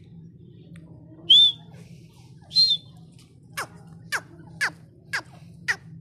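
Female grey francolin (teetar) calling: two loud shrill notes, then a run of quick, sharply falling whistled notes about two a second.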